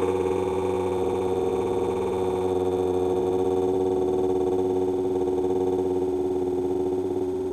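Cat yawn slowed down to a crawl: a steady buzzing drone of several held, warbling tones.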